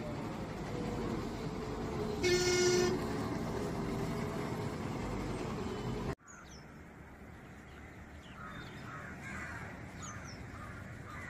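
A bus engine running, with one short vehicle-horn toot under a second long about two seconds in. After an abrupt cut the rumble is gone and crows caw several times.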